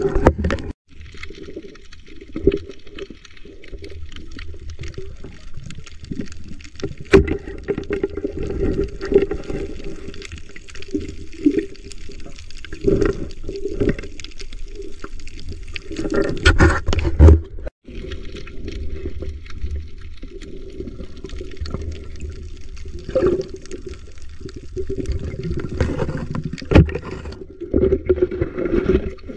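Muffled underwater sound of water sloshing and rushing against a submerged action camera as a swimmer moves, with frequent bumps and a few louder knocks. The sound cuts out briefly twice.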